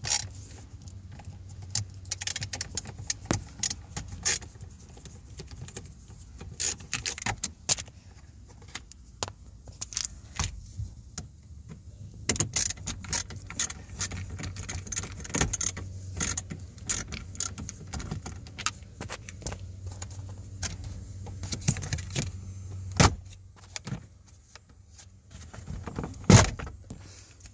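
Phillips screwdriver working screws out of a plastic under-dash trim panel: irregular small clicks, scrapes and rattles, with two louder knocks near the end as the panel comes loose.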